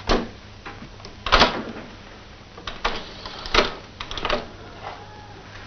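Reel-to-reel tape recorder being worked by hand, its buttons and knob clicked to start playback: about five sharp clicks and knocks over four seconds, the loudest about a second and a half in.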